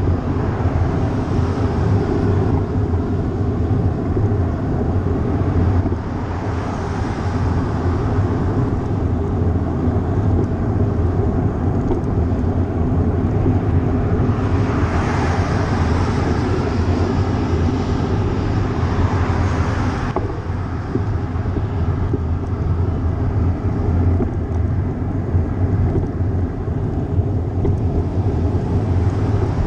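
Wind and road rumble on a GoPro during a bicycle ride: a steady low rumble. There is a louder hissing swell about halfway through as a vehicle passes.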